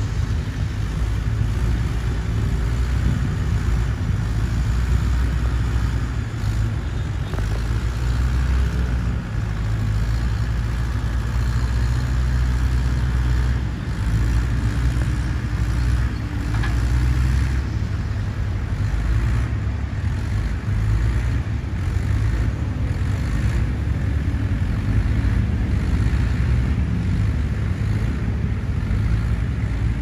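Diesel engines of heavy earthmoving machinery, a wheel loader and a Caterpillar wheeled excavator, running steadily with a low drone that holds level throughout.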